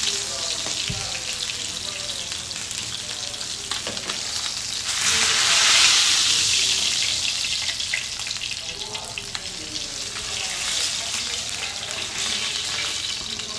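Rohu fish pieces sizzling in hot oil in a frying pan as they are lifted out. The sizzle swells louder for a couple of seconds about five seconds in.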